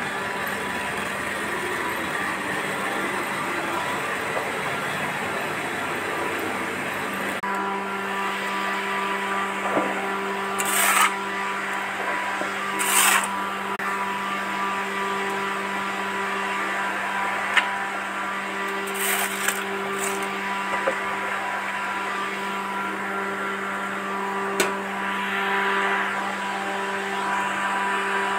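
Steady machine hum like a running motor. About seven seconds in it changes abruptly to an even drone with a constant pitch, with a few short hissing sounds and a sharp click over it.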